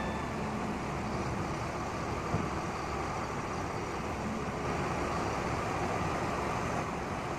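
Steady rushing noise of a fast, muddy river pouring over boulders, mixed with the running diesel engine of a crawler excavator loading a dump truck. There is one small knock about two and a half seconds in.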